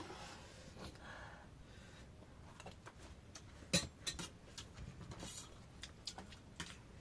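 Eating utensils clicking against a dish: a few scattered light clicks, with one sharper clink just before four seconds in.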